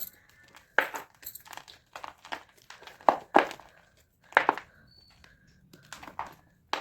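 Pressed blocks of gym chalk being crushed: a string of irregular, sharp crunches with short gaps between them.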